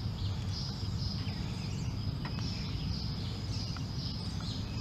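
Outdoor ambience: a steady low rumble under a constant high insect drone, with a few faint bird chirps and small clicks of parts being handled.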